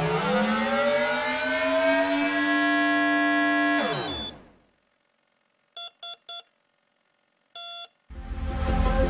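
An electronic tone that sweeps upward and holds, then glides down and cuts off about four seconds in. After a short silence come three short beeps and one longer beep at the same pitch, and music starts near the end.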